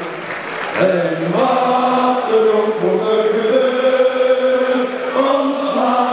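A stadium crowd of football supporters singing together in unison, holding long notes of a song.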